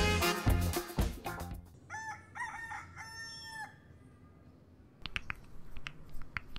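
Theme music ends about a second and a half in, then a rooster crows once, cock-a-doodle-doo, in several short rising notes and a longer held last note. Faint rustling and clicks follow near the end.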